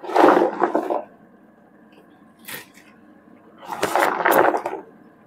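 Dried jujubes (boroi) tipped by the handful into a pan of thick, simmering pickle sauce. There is a noisy rustle and splat in the first second, a brief one about two and a half seconds in, and a bigger one about four seconds in, with a faint steady hum between them.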